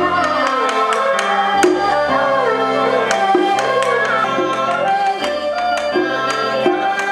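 Traditional Chinese theatre music accompanying a marionette show. A wavering melody is held over low bass notes that change about once a second, with frequent sharp percussion strikes.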